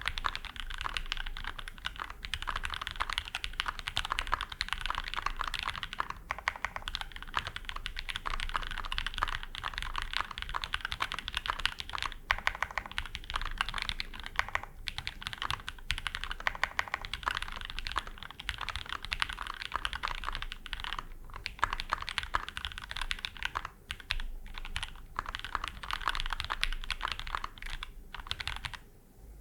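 Fast continuous typing on a Mode SixtyFive custom mechanical keyboard in stack mount, with lubed and filmed SP-Star Meteor White linear switches on an FR4 plate under GMK keycaps, with a few brief pauses between bursts.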